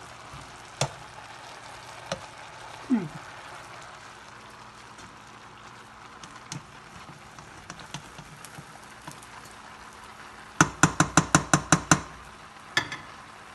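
Ground chicken, peppers and other vegetables sizzling in a pot on high heat as a spoon stirs them, with scattered clinks. Near the end, a quick run of about ten sharp knocks of the spoon against the pot, lasting just over a second.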